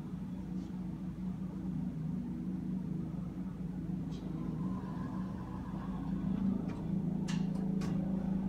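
Air-rescue helicopter with a ducted tail rotor running on the helipad with its rotor turning before lift-off: a steady low hum, a little louder near the end. Two or three short sharp clicks come about seven to eight seconds in.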